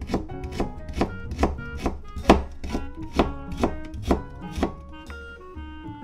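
Chef's knife slicing fresh ginger on a plastic cutting board: steady knife strikes about two a second that stop near the end. Background music plays underneath.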